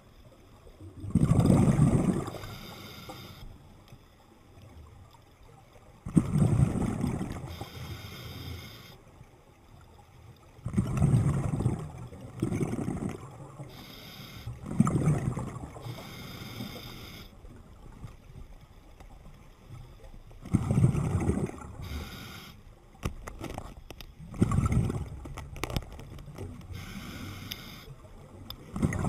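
A scuba diver breathing underwater through a regulator: bursts of bubbling exhalation with a hiss of inhalation, repeating about every four to five seconds.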